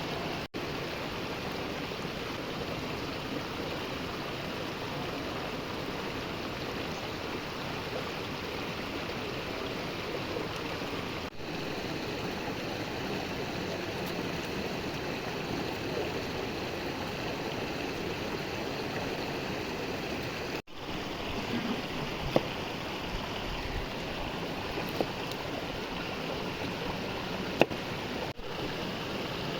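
Steady rush of a flowing stream, with a few sharp ticks near the end.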